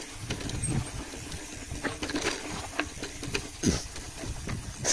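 Bicycle riding noise: wind rushing over the microphone and tyre rumble on the road, with scattered light clicks and rattles from the bike.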